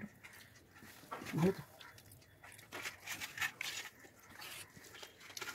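Quiet eating sounds: fingers working rice and fish curry on plates, with soft wet clicks and chewing close to a clip-on microphone. A brief rising vocal sound comes about a second and a half in.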